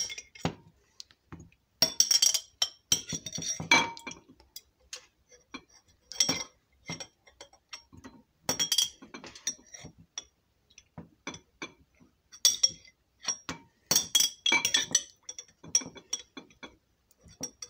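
Metal spoon clinking and scraping against the inside of a glass olive jar as olives are fished out: irregular clusters of short clinks with a brief glassy ring.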